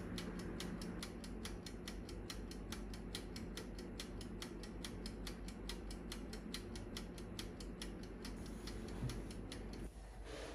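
Toaster oven's mechanical wind-up timer ticking steadily, about five ticks a second, while the oven heats, over a low steady hum; the ticking stops near the end.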